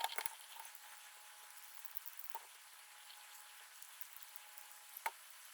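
Faint clicks and scratchy creaks of M3 screws being turned into the holes of a servo housing to cut threads in them, over a steady faint hiss. The sharpest clicks come at the start, about two and a half seconds in, and near the end.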